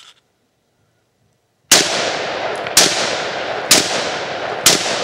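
Four rifle shots in quick succession, about a second apart, starting a little under two seconds in. Loud noise hangs on between the shots.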